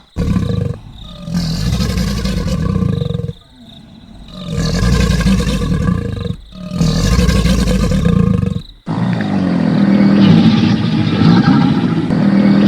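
Crocodiles growling and bellowing: a series of deep rumbling calls, each one to four seconds long, separated by abrupt cuts, with a longer, steadier rumble in the last few seconds.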